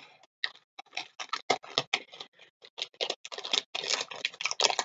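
Plastic ladder-lock buckles and clips clicking and rattling against each other while being handled in a small plastic bag, with rustling. The clicks come in a rapid, irregular clatter, busiest in the second half.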